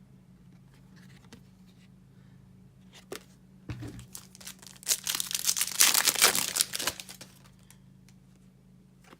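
A foil trading-card pack being torn open and crinkled: a few light handling clicks, then a dense crackling burst of about two seconds near the middle.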